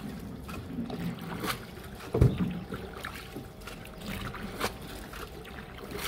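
Small tour boat moving along a canal: water noise with scattered knocks, and one heavier thump about two seconds in.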